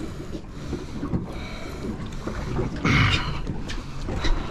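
Steady wind and water noise aboard a small fishing boat, with a louder burst of rushing noise about three seconds in.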